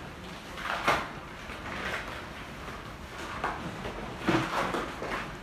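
Handling noise from a mechanical chest compression device being fitted: a few sharp knocks, the loudest about a second in, over plastic rustling as the backplate and drape are moved. The device is not yet running.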